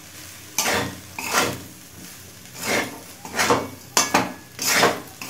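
Spatula scraping and tossing pasta around a metal kadai: about seven short scraping strokes against the pan.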